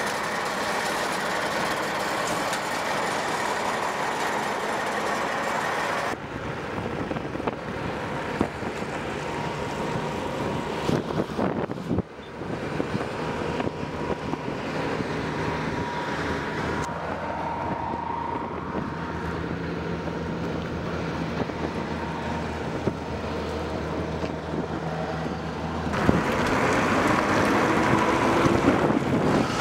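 Diesel engines of military vehicles in several short takes: a heavy truck running, then a column of eight-wheeled Stryker armoured vehicles driving on concrete, engines humming steadily with tyre and road noise. It gets louder near the end as a Stryker passes close by.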